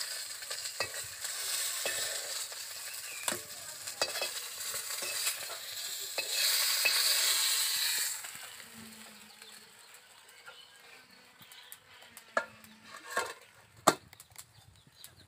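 Rohu fish pieces sizzling in hot oil in an iron wok, with a metal spatula scraping and clicking against the wok and a steel plate as the fried pieces are lifted out. The sizzle swells just before it fades about eight seconds in, leaving a few sharp clinks.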